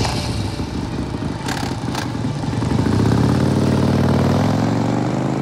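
Motorcycle engine running loudly as the bike pulls away, its pitch climbing steadily through the second half as it accelerates.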